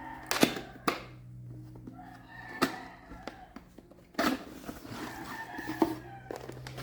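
A power supply's cardboard box being handled and opened: a few sharp knocks and taps, with a stretch of rustling packaging about four seconds in, over a faint steady hum.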